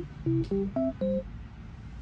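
Background music: a few short, soft pitched notes in quick succession in the first second, then a quieter stretch.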